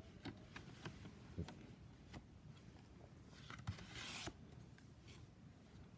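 Faint handling of a Blu-ray case in its cardboard slipcover: a few small clicks, then a brief rubbing, sliding noise about three and a half seconds in as the case is lifted.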